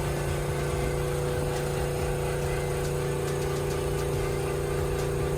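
A steady mechanical hum that holds one pitch throughout, with a few faint clicks and taps of parts being handled.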